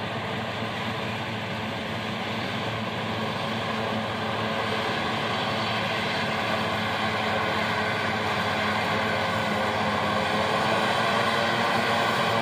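New Holland FX28 self-propelled forage harvester chopping standing corn: a steady engine and machinery drone that grows gradually louder as it approaches.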